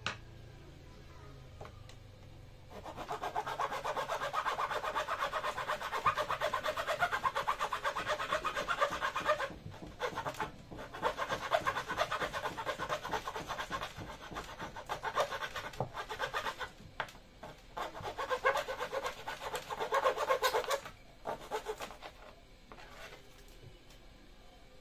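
Wood chisel paring protruding dowel ends flush on a rubberwood rail: a fast, dry scraping of steel on wood in long runs, broken by short pauses, that stops a few seconds before the end.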